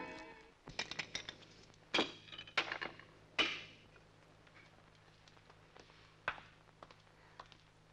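Dice clattering: shaken and tossed onto a table, a string of sharp clicks and clacks. The loudest come about two and three and a half seconds in, followed by a few scattered light taps.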